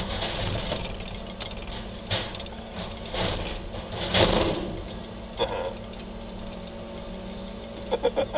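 Truck-mounted loader crane working: a steady low hum from the truck's engine and hydraulics, with irregular rattling and clanking of the boom and grapple, loudest about four seconds in, and a few short sharp knocks near the end.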